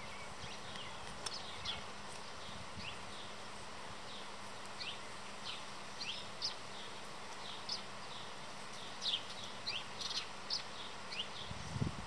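Small songbirds giving short, high chip notes, scattered irregularly over a steady faint hiss.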